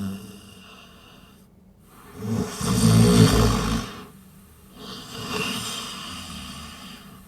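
A person snoring: a loud rattling snore about two seconds in, followed by a softer, breathy exhale.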